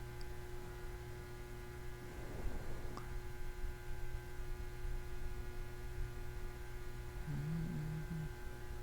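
Steady electrical hum of several constant tones over a low rumble, with a faint click about three seconds in and a brief low hum near the end.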